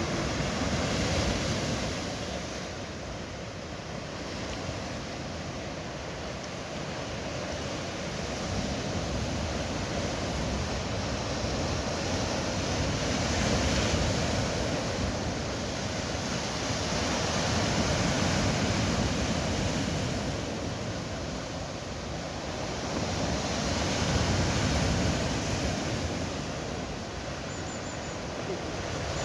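Sea waves surging up and washing back over a beach of round pebbles (mongdol). The noise swells and ebbs every several seconds, with no speech.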